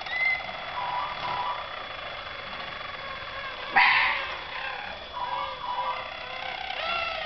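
Harzer Roller canaries singing in their cages: soft runs of rapid trills and repeated arched notes. A single loud, short, rough burst about four seconds in stands out above the song.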